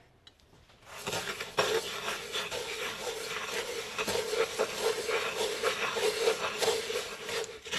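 A hand kneading and rubbing dry TVP granules together with coconut oil and sauce in a nonstick pot: a steady gritty rustling that starts about a second in.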